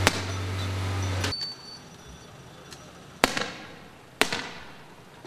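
A hand-held firework hissing, with a steady low hum and one sharp crack, cutting off about a second in. Then two sharp explosive bangs about a second apart, each trailing off in a long echo.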